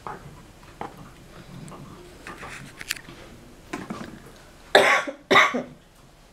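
A woman coughs twice in quick succession about five seconds in. Before that, faint clicks and scrapes of a small knife cutting food.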